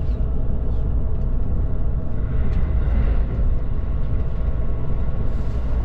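Steady low rumble of the Relay Kamome limited express train running, heard inside the passenger car.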